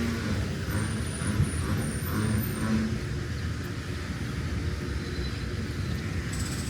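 City street traffic: vehicle engines running with a steady low rumble, and an engine hum in the first few seconds.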